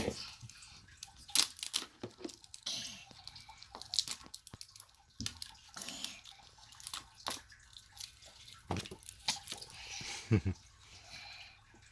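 Hands opening small plastic toy packages: crinkling and tearing of wrapping with scattered sharp clicks and rustles.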